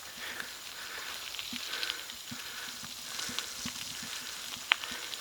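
A cyclist breathing heavily in a steady rhythm while climbing a slope, over a crackling hiss with scattered clicks. One sharp click near the end is the loudest sound.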